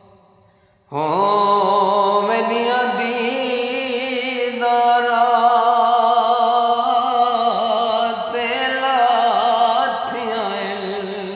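A man sings one long, ornamented line of a Saraiki song, held and wavering in pitch. He comes in suddenly about a second in, after the previous phrase has faded.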